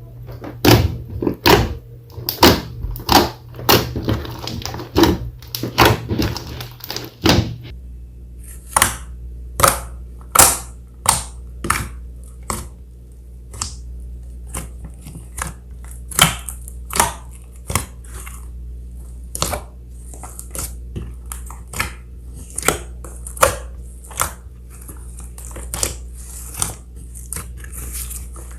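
Slime being squeezed and worked by hand, making a run of sharp wet clicks and pops. They come thick and fast at first, then about seven seconds in the sound changes to single clicks about once a second over a low steady hum.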